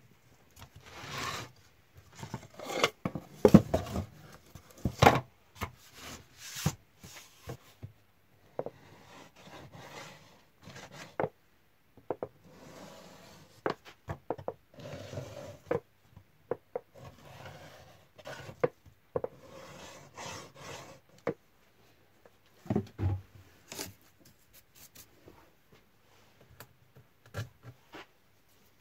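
Thin plywood panels handled on a wooden workbench: a run of sharp knocks and taps as the taped panels are turned over, then a series of short rubbing strokes as a hand works along the glued joints, with a few more knocks later on.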